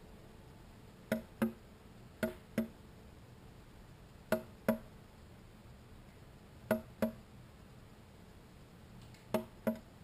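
A bird pecking at window glass: five double taps, two sharp knocks about a third of a second apart, repeated every two to two and a half seconds.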